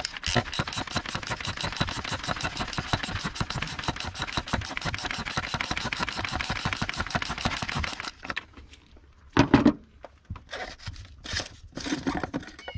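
Socket ratchet with a 27 mm socket clicking rapidly and steadily as it unscrews the oil filter housing cover of a Peugeot 1.6 HDi diesel anti-clockwise. The clicking stops abruptly about eight seconds in, followed by a few separate knocks as the loosened cover is handled.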